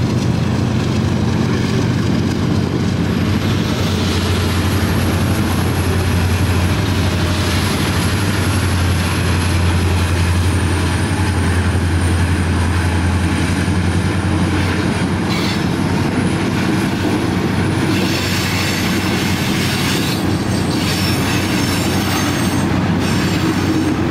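Norfolk Southern freight train passing close by: the lead diesel locomotives' engines make a loud, steady low hum through the first half, with a thin high wheel squeal on the curve, then the ballast hopper cars roll by with rattling and clacking wheels.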